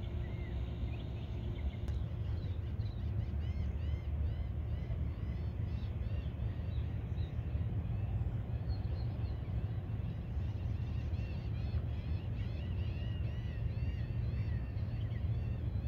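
Small birds chirping, many short high notes repeated over and over, over a steady low outdoor rumble.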